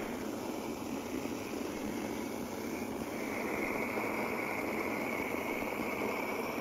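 Portable gas burner torch running with a steady rushing noise as it singes the hair off a cowhide; a steady whistle joins about three seconds in.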